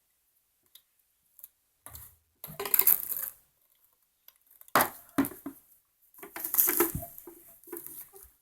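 Objects being rummaged through and handled, with irregular bursts of clattering and rustling separated by short pauses.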